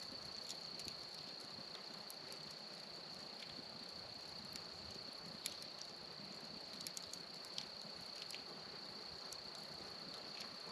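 A faint, steady, high-pitched chorus of crickets, with scattered small pops and crackles from a wood fire of burning stumps and embers.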